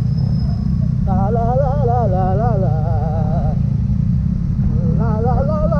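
Motorcycle riding through wet traffic: a steady, heavy low rumble of engine and wind. Over it, a voice hums a wavering tune twice, from about a second in and again near the end.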